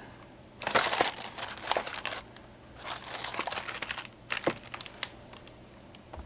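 Plastic wrapping crinkling in three or four short bursts as packs are handled, going quiet about five seconds in.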